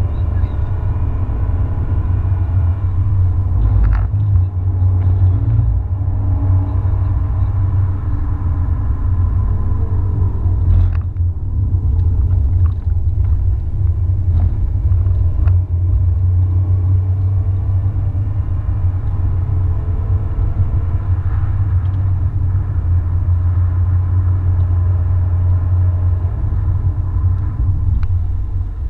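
A car driving along a highway: a steady, loud low rumble of engine and tyres on the road, with a few brief clicks now and then.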